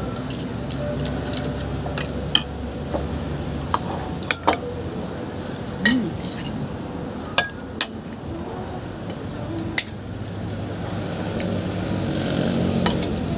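Metal spoon and fork clinking against seafood shells and a plate while eating, about ten short sharp clinks at uneven intervals, over a steady low background hum.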